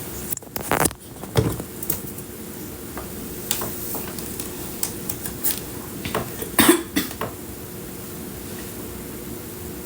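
Scattered light knocks and clicks of small hard objects being handled, over a steady hiss, with a louder clatter about six and a half seconds in.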